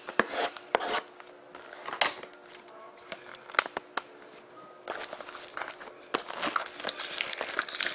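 Cellophane shrink wrap being cut and torn off a sealed hobby box of trading cards: scattered sharp snaps and clicks at first, then steady plastic crinkling from about five seconds in.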